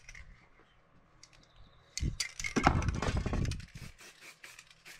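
Clicks and rubbing from a stencil and a spray can being handled against a painted board, quiet at first, then a burst of clicks lasting over a second about two seconds in.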